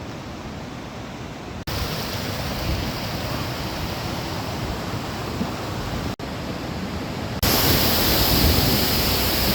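Steady rush of falling water from waterfalls, heard in several clips joined by sudden cuts about one and a half, six and seven and a half seconds in, the last clip the loudest.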